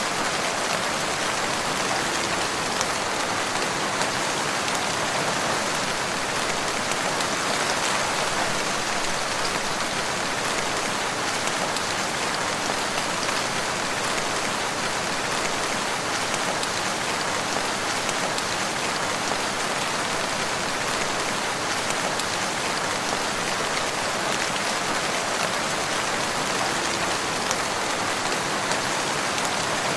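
Steady rain falling, a dense, even patter with no thunder or other events.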